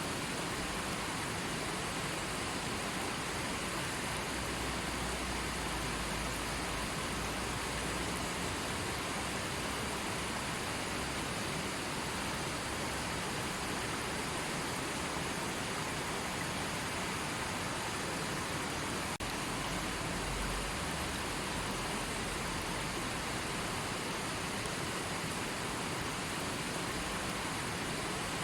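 River water rushing and flowing, a steady, even wash of sound.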